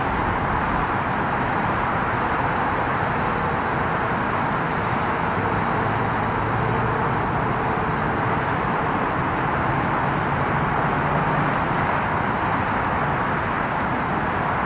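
Steady outdoor rushing noise, like distant city traffic, with a faint low hum in the middle.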